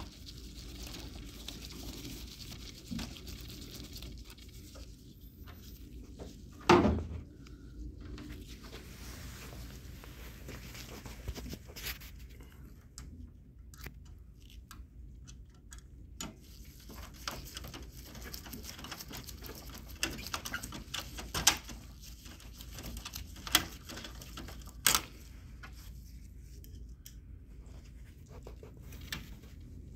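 Handling noise from reassembling an HP 4001 laser printer: scattered clicks, taps and light scraping of a screwdriver on the printer's metal frame and plastic parts. There is a louder knock about seven seconds in and several sharp clicks in the second half.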